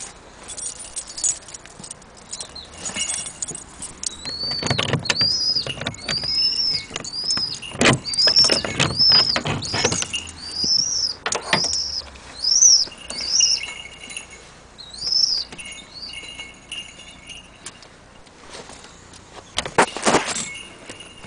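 A hawk calling over and over, a string of high, rising-and-falling cries about one a second through the middle of the stretch, mixed with knocks and metal rattles from a padlock and door bolt being worked on a wooden mews door. A sharp rattle comes again near the end.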